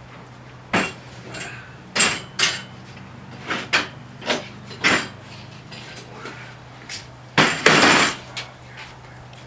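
Metal parts clanking and knocking as they are handled and set down, about a dozen separate knocks, with a longer scraping clatter about eight seconds in.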